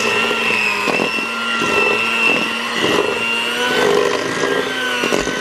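Electric hand mixer running steadily with a constant whine, its beaters churning cookie dough of creamed butter, sugar and egg in a stainless steel bowl. A few short knocks come as the beaters strike the bowl.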